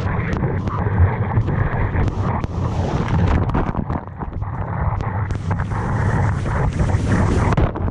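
Wind buffeting an action camera's microphone while a bodyboard rides a breaking wave, with rushing water and many short sharp splashes of spray.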